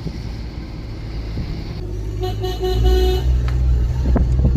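Steady low rumble of a vehicle driving, with a vehicle horn tooted several times in quick succession about two and a half seconds in.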